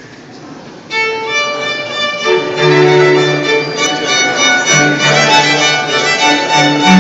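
A string quartet of two violins, viola and cello playing live. The high violin line comes in about a second in, and the lower parts join a second or so later.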